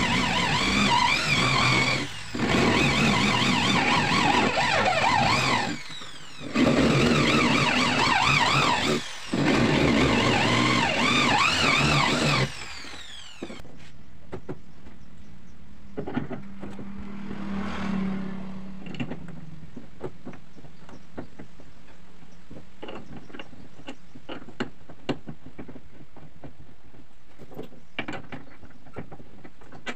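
A handheld power tool's motor running in three long bursts with short pauses between them, its pitch wavering as it works under load, then stopping about twelve seconds in. After that only light clicks and knocks over a low steady background, with a brief low hum partway through.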